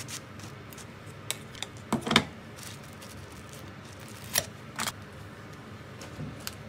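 Metal butter knife scraping and clicking on crisp toasted bread while spreading cream cheese: a few short scratchy clicks, the loudest cluster about two seconds in and two more a little after four seconds.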